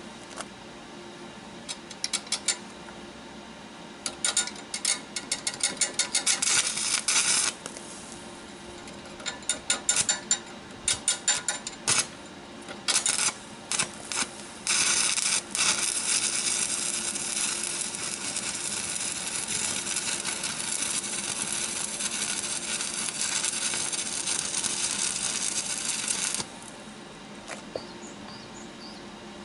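Arc welder crackling as the arc is struck in a run of short, stop-start bursts, then sizzling steadily for about twelve seconds while a weld bead is laid to fix a large caster onto a steel frame. It cuts off abruptly a few seconds before the end.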